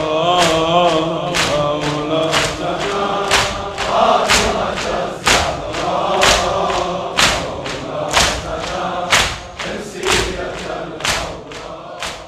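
Arabic noha lament: a group of voices chanting, over a steady beat of sharp strokes about once a second, fading out near the end.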